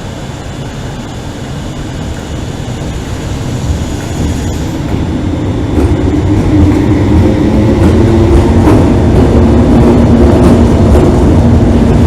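A pair of Class 318 electric multiple units pulling out, their rumble growing steadily louder, with a steady motor hum coming in about halfway through.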